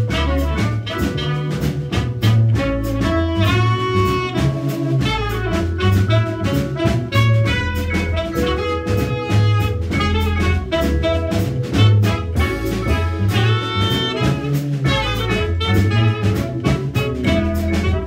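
Small jazz band playing live: a trumpet carries the melody over plucked upright bass, vibraphone and a drum kit keeping time.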